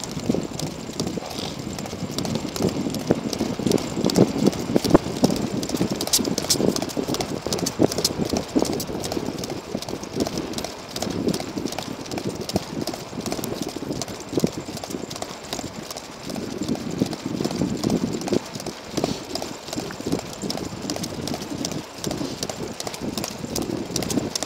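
A Sacco Wagon dog cart rolling along a farm road behind three running Australian Shepherds: a steady rumble from the wheels and frame, with quick, rhythmic footfalls and many small rattling ticks.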